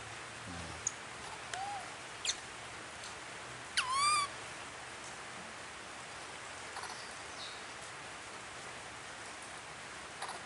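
A baby monkey's short calls: a couple of faint chirps, then about four seconds in one clear coo, about half a second long, that dips in pitch and rises again.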